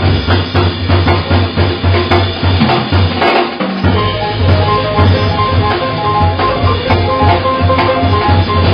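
Live jazz quartet playing, with the drum kit to the fore (cymbals, snare and bass drum) over upright bass notes and a held higher note from about halfway through.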